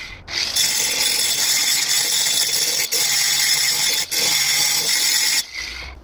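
Electric angle grinder grinding the edge of a steel axe head to sharpen it: a loud, high grinding with two very brief breaks, cutting off about five and a half seconds in and winding down.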